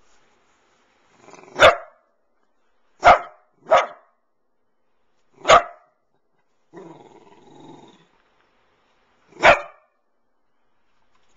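Dachshund barking at a mop: five sharp single barks, two of them close together about three seconds in. A quieter low growl of about a second falls in the long gap near the middle.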